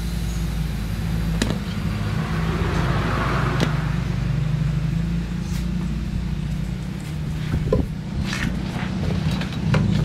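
Refrigeration vacuum pump motor running with a steady hum, evacuating the refrigerator's sealed system. Scattered short metallic clicks come from the brass manifold gauge and hose fittings being handled.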